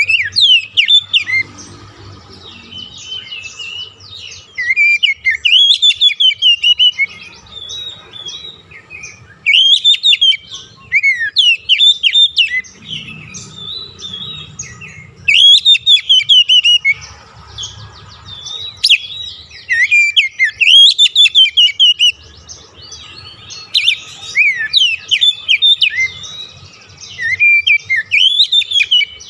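Oriental magpie-robin (kacer) singing in loud bursts of rapid, varied whistled phrases a few seconds long, with short pauses between them, over a faint steady hum.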